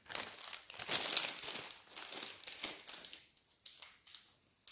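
Paper sterile drape crinkling and rustling as gloved hands smooth and adjust it. The rustling is loudest about a second in and thins to a few faint rustles after about three seconds.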